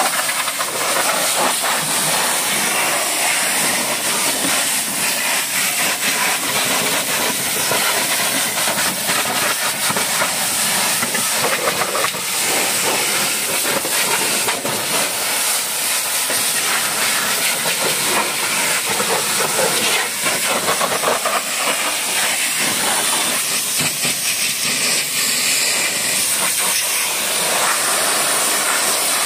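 High-pressure water jet from a pressure-washer wand hissing steadily as it sprays a car's wheel, wheel arch and then its roof and windows, the hiss swelling and dipping as the jet moves across the surfaces.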